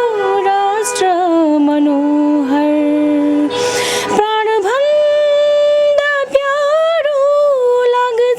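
A woman singing a Nepali song unaccompanied, drawing out long held notes with gentle slides in pitch, with two short breaks between phrases.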